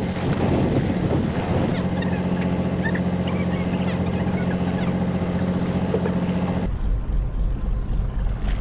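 Fishing boat's engine running steadily, a low hum with a few even tones. Near the end the sound changes abruptly to a duller, deeper rumble with the higher sounds cut away.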